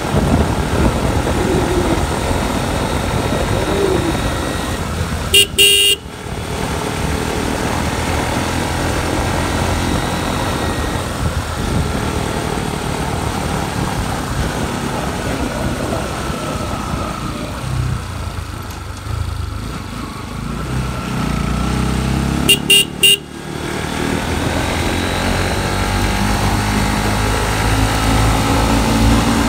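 Motorcycle riding along, its engine and the wind making a steady low rumble. A horn sounds two short beeps about five seconds in, and three quick beeps about three-quarters of the way through.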